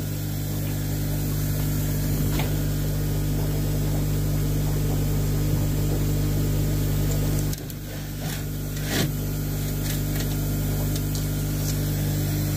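Steady low electrical hum of running pond pump equipment, with a few faint knocks; the hum dips briefly a little past halfway.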